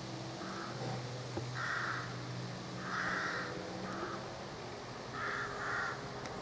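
Crows cawing: about six short, harsh caws, some in quick pairs, over a faint steady low hum.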